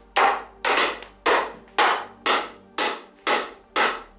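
Hammer blows driving nails into the timber studs of a wooden frame, about two evenly paced strikes a second, each ringing briefly.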